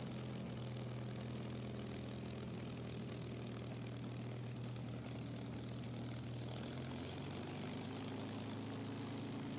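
Tsunami racer's Rolls-Royce Merlin V-12 running at low power with the propeller turning as the aircraft taxis, a steady low drone that drops slightly in pitch about two-thirds of the way through.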